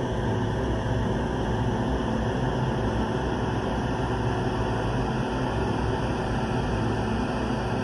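Steady low rumbling drone of a horror ambience sound effect, unchanging throughout with no distinct hits or events.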